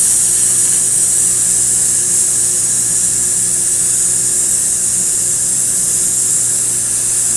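A long, steady voiceless "s" hissed evenly on one breath by a voice teacher: a breath-support exercise in which the sound is kept the same from start to finish by pressing with the abdominal muscles while the chest stays still.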